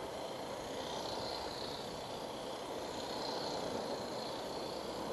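Steady outdoor background noise with a faint high whine that rises and falls in pitch: a WLtoys A959 RC car's small electric motor being driven some way off.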